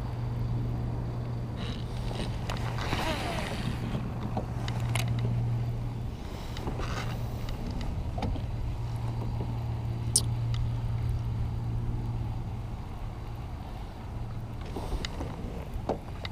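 Baitcasting reel being cranked through a retrieve, its gears giving a steady low hum with a few light clicks.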